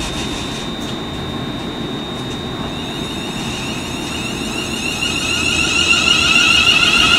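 Class 380 electric multiple unit approaching along the platform: a low running rumble with a high electronic whine from its traction motors, which sets in a few seconds in and grows louder as the train draws near.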